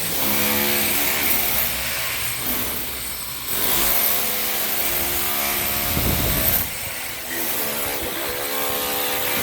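A power tool running, its pitch shifting up and down several times over a steady hiss.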